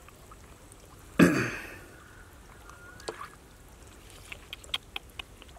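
Shallow pond water sloshing and dripping as a person wades and feels through water hyacinth by hand. There is one loud splash about a second in, then a few small drips and ticks near the end.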